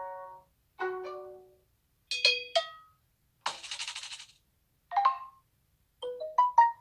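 Samsung Galaxy J7 Pro (2017) preset alert tones previewed one after another: a series of short chimes and blips, each under a second long with brief silences between. A short rattly noise comes about halfway through, and a quick run of notes near the end.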